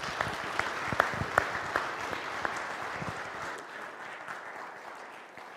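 Audience applauding, the clapping fading away gradually over the last couple of seconds.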